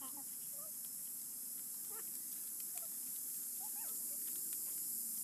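Scattered short calls of small animals, each a brief rising or falling chirp, about one a second over a steady high hiss.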